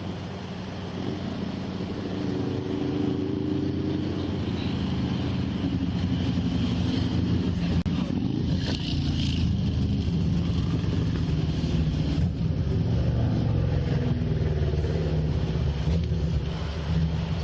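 A car engine running close by with a steady hum. It grows louder about two seconds in and then holds steady.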